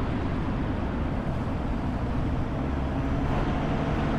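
Steady rumble of a car driving slowly, road and wind noise with a deep, even rumble and a hiss over it.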